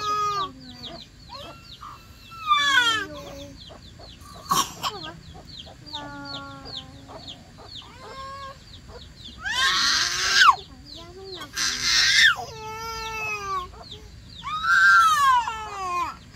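A toddler crying and whimpering in repeated high, falling wails, several bouts with the loudest two about two-thirds of the way through.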